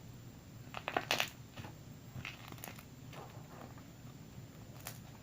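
Crunchy slime being squeezed and worked by hand, giving scattered crackles and pops, the loudest cluster about a second in.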